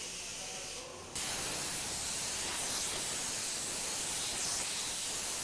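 Paint spray gun hissing steadily as it sprays white paint onto a casket. The hiss steps up louder about a second in.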